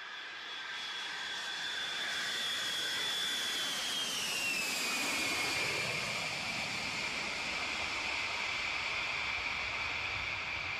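Four-engine jet airliner, a Boeing 707, passing on takeoff: a building jet noise with a high whine that drops in pitch about four to five seconds in as the plane goes by, then holds at the lower pitch.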